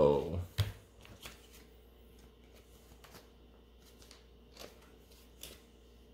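Quiet handling of trading cards: one sharp click about half a second in, then a few faint taps and rustles over quiet room tone.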